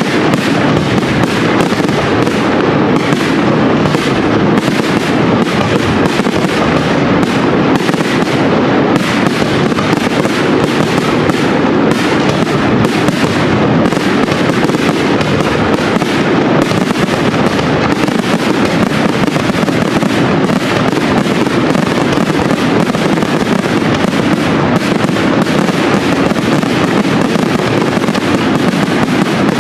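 Large professional fireworks display: a dense, unbroken barrage of aerial shell bursts and crackling, at an even loudness with no pauses.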